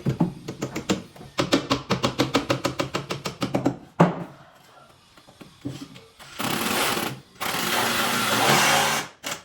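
Power tool work on woodwork: a fast rattling run of about seven or eight strokes a second for around four seconds, ending in a sharp knock. Later come two bursts of steady hissing noise, about a second and a second and a half long.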